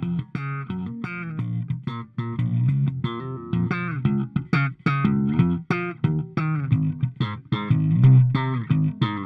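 Electric bass guitar played through an Empress Compressor pedal: a quick run of short, punchy plucked notes, about three or four a second, that stops abruptly near the end.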